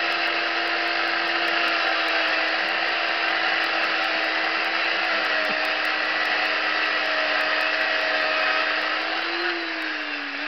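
Chainsaw running at high speed with its bar carving into a wood block, a steady engine note over the rasp of the chain cutting. Near the end the pitch wavers and dips briefly as the cut loads the saw, then picks up again.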